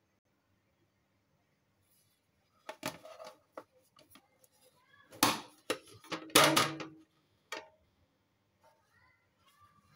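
Plastic plate set on a metal baking tin, the pair flipped over and the tin knocked and lifted off to turn out a steamed dhokla: a run of clatters and knocks starting about three seconds in, loudest a little past the middle.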